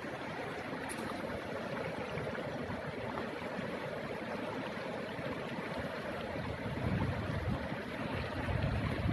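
Steady rush of river water, with one sharp click about a second in and a low rumble swelling near the end.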